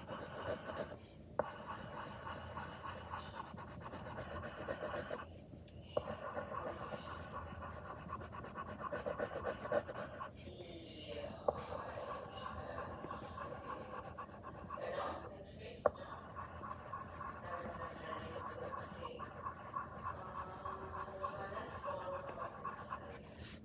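Colouring on paper: quick, repeated scratchy strokes in short runs with brief pauses between them.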